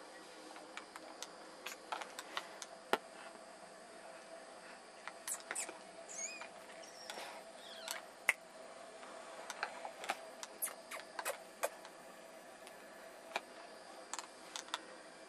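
Newborn kittens shifting about on the fabric lining of a basket: scattered small clicks and rustles, with a few brief high squeaks about six to seven seconds in.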